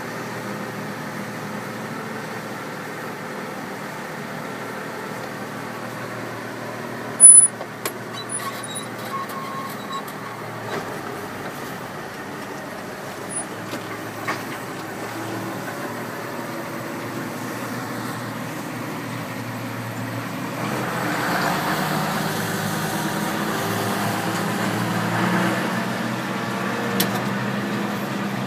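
Diesel engines running steadily: a John Deere 6900 tractor heard from its cab, with a wheel loader working close by. A short, very loud bang comes about seven seconds in, and the engine noise grows louder from about twenty seconds as the tractor pulls away.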